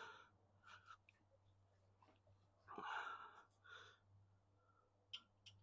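Near silence: a faint steady low hum with a few soft, brief noises, among them a small click near the end.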